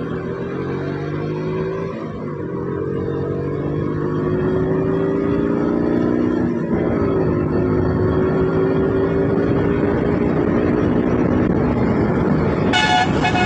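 Motorcycle engine running under way at road speed, with rushing noise over it. Its pitch climbs slowly and drops back about two seconds in and again about seven seconds in, as at gear changes, then holds nearly steady. A short high-pitched tone sounds near the end.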